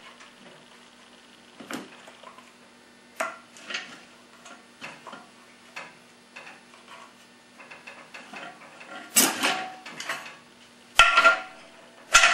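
Metal transmission parts and hand tools clinking and clanking as the accumulator piston is worked out of a Turbo 350 transmission case. The clinks are scattered and short, with the two loudest near the end, over a faint steady hum.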